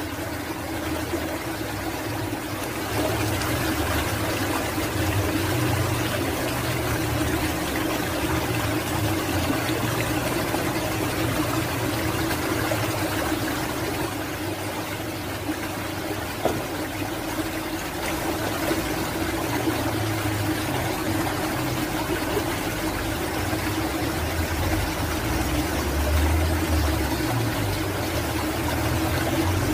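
Steady rush of flowing stream water, with a low rumble underneath that swells and fades.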